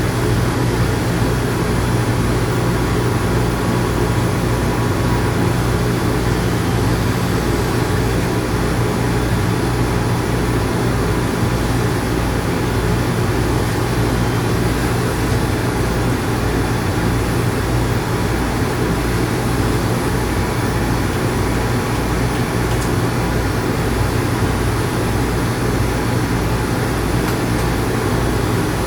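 Electric dog grooming clippers running steadily with a #10 blade as they clip the dog's face, a constant buzzing hum. Underneath is a low, even thudding beat of bass music from outside.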